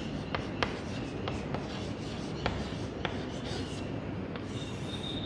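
Chalk writing on a blackboard: scratchy strokes with sharp ticks as the chalk taps and drags across the board.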